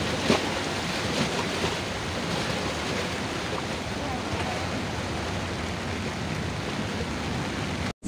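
Seawater surging through a flooded street: a steady, churning rush of water.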